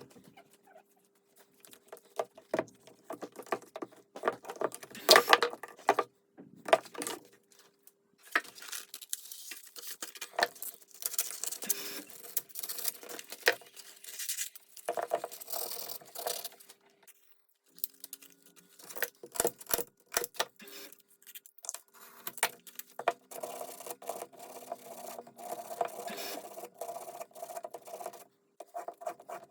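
Irregular clicking, clinking and scraping of small metal parts and hand tools, as an electric demolition hammer with burnt carbon brush holders is worked on by hand.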